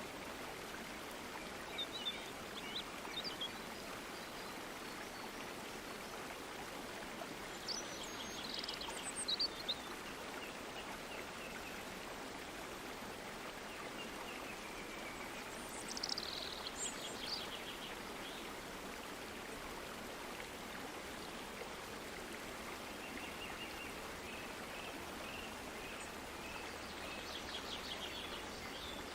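A stream flowing with a steady, even rush of water, while birds call over it now and then: a few short chirps, a louder burst of calls about a third of the way in, a falling call a little past halfway, and a run of short repeated notes near the end.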